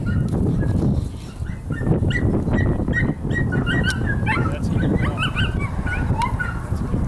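Dogs barking and yipping in many short, high calls, more of them after about two seconds, over a steady low rushing noise.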